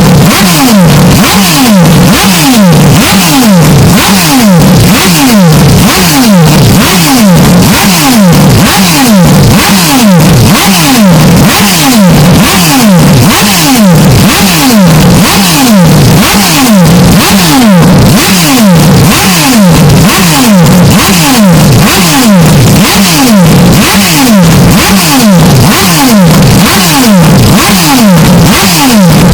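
Porsche 911 RSR racing engine sound, bass-boosted and distorted until it clips throughout. The engine pitch drops sharply again and again at an even pace, a couple of times a second, like a rev pattern repeating.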